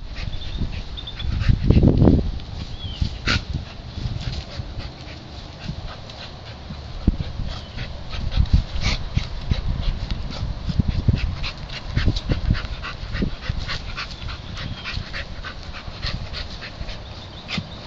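A dog panting and whining as it noses and paws a brick around on dirt and grass, with irregular clicks and low thumps throughout and a heavier thump about two seconds in.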